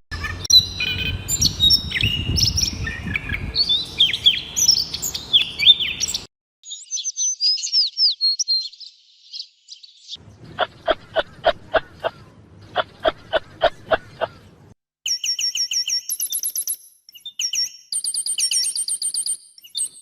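Songbirds chirping and singing in several short clips cut one after another: a mix of many birds' chirps over a low rumble, then quick high chirps, then two runs of about seven evenly spaced sharp notes, and finally rapid high trills.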